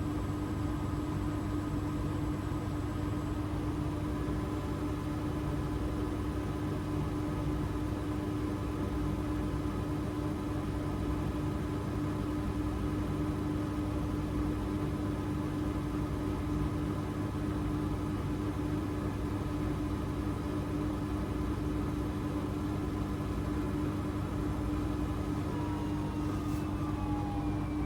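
AEG 8000 Series front-loading washing machine spinning at a steady speed, with a steady motor hum. Near the end the motor whine begins to fall in pitch as the drum starts to slow.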